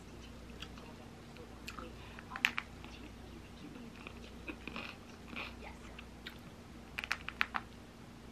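Quiet close-up eating sounds: a metal spoon clicking against a ceramic bowl of yogurt and cereal, and soft chewing and crunching. A quick run of sharp clicks comes near the end.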